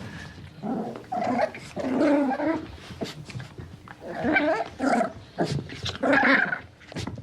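A puppy giving a string of about five short calls with brief gaps between them.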